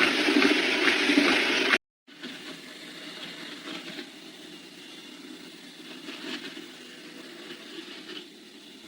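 A loud, even rushing noise that cuts off abruptly just under two seconds in, followed by a much quieter steady hiss with faint scattered knocks.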